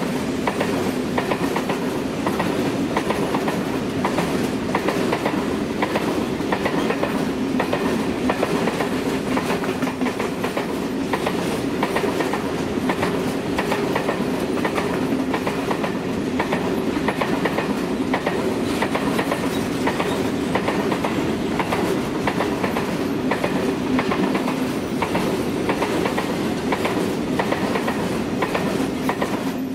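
A Renfe train rolling past at steady speed, its wheels clicking rapidly and evenly over the rail joints above a steady running rumble.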